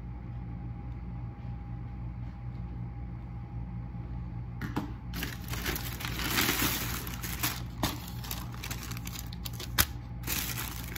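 Plastic carrier bag and paper takeout bags rustling and crinkling as they are handled, starting about halfway through, with a sharp snap near the end. Before that, a steady low hum.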